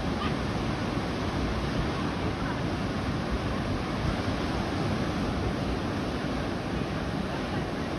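Ocean surf breaking on a beach in stormy wind: a steady rushing noise, with wind rumbling on the microphone.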